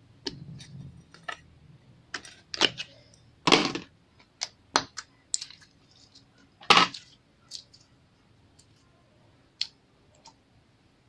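Slime being pressed, poked and stretched by hand, giving irregular sticky clicks and pops, with two louder squelchy bursts about a third and two-thirds of the way through.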